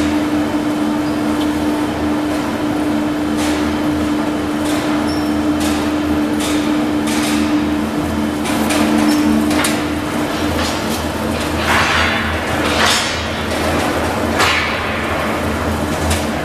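MIC 80 bar straightening machine running, with a steady drive hum and a tone that fades out about two-thirds of the way through. Over it come repeated metallic clanks and rattles, which grow louder and closer together in the second half.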